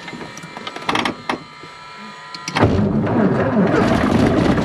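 A few clicks and knocks, then about two and a half seconds in the Cessna 140's piston engine starts and turns the propeller, running with a steady, fast pulse from then on.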